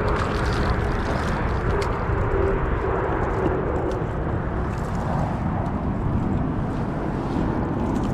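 Wind buffeting the microphone, a steady low rumble, with a few faint ticks and a splash as a small rainbow trout is reeled in and swung onto the bank.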